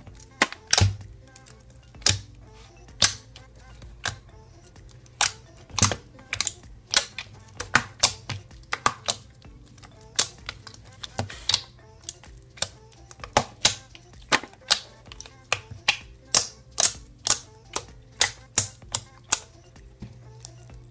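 Fluffy slime being pressed and poked by hand, its trapped air popping out in sharp, irregular clicks and snaps, two or three a second.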